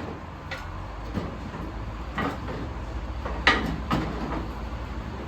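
A few sharp metallic clunks and knocks over a low steady rumble, from work on a car's front suspension as coil springs are fitted.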